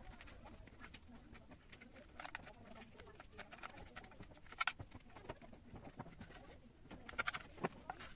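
A sharp hand knife cutting and paring a thin strip of wood held against a wooden stump: scattered crisp cuts and taps, the loudest about halfway through and a quick cluster near the end.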